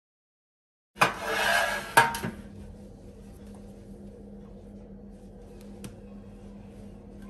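A metal baking tray scraping across a countertop for about a second and ending in two sharp clanks, followed by a faint steady hum with a couple of light ticks.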